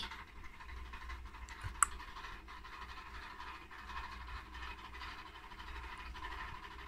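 Border collie panting softly over a low steady hum, with one sharp click about two seconds in.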